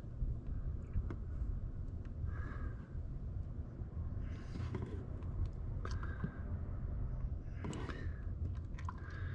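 Automatic transmission fluid pouring from a plastic quart bottle into a funnel, glugging a few times as air gulps back into the bottle, with some small clicks, over a steady low rumble.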